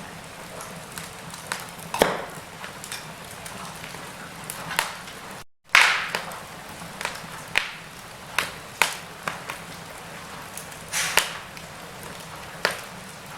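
Wood fire burning in a fireplace: logs crackling with sharp pops every second or so over a low steady hiss. The sound cuts out for an instant about five and a half seconds in, then comes back with a loud pop.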